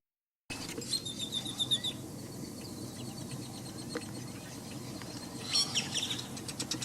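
Birds calling: a rapid run of high, repeated chirping notes about a second in, and another burst of high calls near the end, over a steady low background rush.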